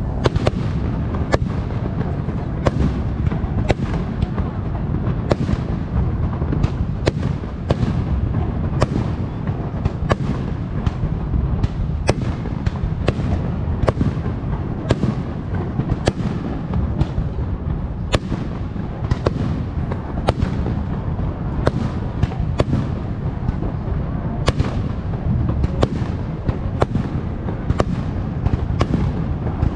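Aerial fireworks shells bursting one after another, sharp bangs about once or twice a second over a continuous low rumble of further bursts.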